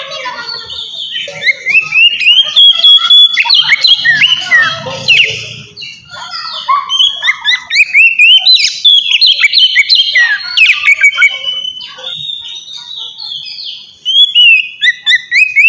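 Oriental magpie-robin singing a loud, varied song of whistles with many rising and falling glides. It breaks off briefly about six and fourteen seconds in.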